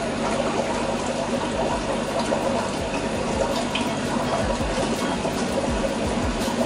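Continuous trickling and bubbling of water from the filters and aeration of a room full of running aquarium tanks, with a steady low hum underneath. A few soft low thumps come midway.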